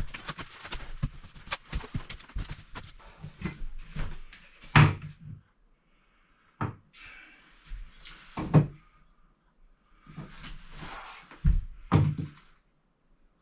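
Irregular knocks and thumps, with loud ones about five, eight and a half and twelve seconds in, and short stretches of scraping or rustling between them.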